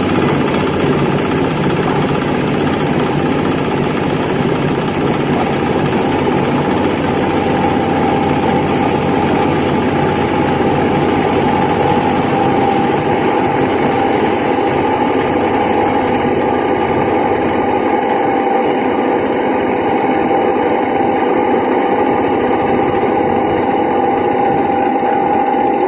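Livestock feed grinding machine running steadily, a loud continuous mechanical noise with a faint steady hum, as it grinds rice husk mixed with bread into feed.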